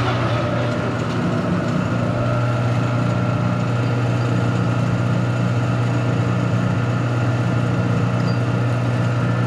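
Metal lathe running steadily, its motor and headstock giving a constant low hum.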